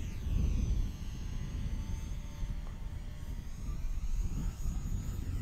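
Mini electric RC warbird's motor and propeller whining as the plane takes off and climbs past, under a steady low wind rumble on the microphone.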